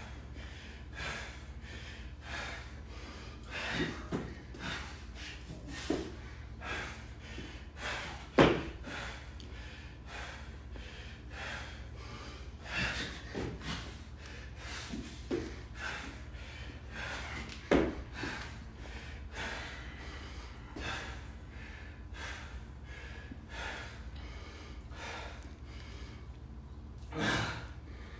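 A worn-out athlete's heavy panting, with gasps and snorting breaths, between reps of deadlifts and burpees. A few sharp thuds break through, the loudest about a third of the way in and again past the middle.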